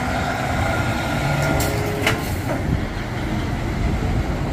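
Heavy tow truck's diesel engine and tyres rumbling steadily as it drives past towing a coach bus, with one short tick about two seconds in.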